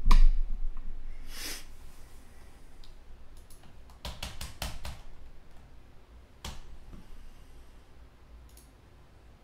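A low thump at the start, a short swish about a second and a half in, then a quick run of about five sharp clicks around four seconds in and one more click a couple of seconds later.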